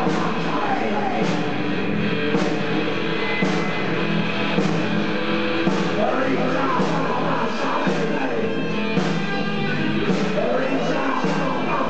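Live rock band playing electric guitar, bass and drums, with sharp hits on the beat roughly once a second.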